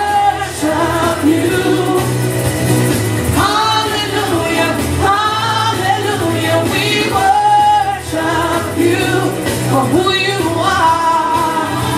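A woman singing a gospel worship song into a handheld microphone, holding long sliding notes over a steady instrumental backing with a sustained bass line.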